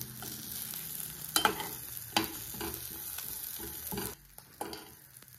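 Whole spices, curry leaves and shallots roasting in a little sesame oil in a pan, with a steady sizzle and a spoon stirring, and a few sharp scrapes against the pan. The cumin and pepper have already crackled, so the masala is nearly done roasting. The sizzle drops quieter about four seconds in.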